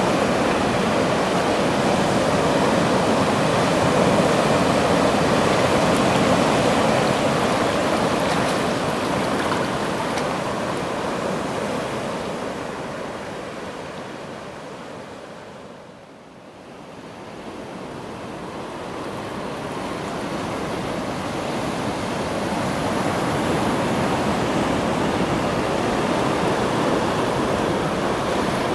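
Ocean surf washing and breaking over rocks, a steady rushing of water. It fades down to quiet about halfway through and swells back up again.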